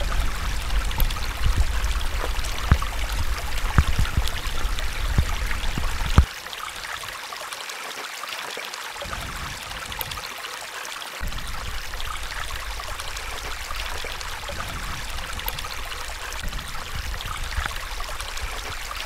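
Shallow creek trickling and splashing over rocks and a small cascade, a steady rushing hiss. For the first six seconds a strong low rumble with scattered knocks lies under it, stopping abruptly about six seconds in.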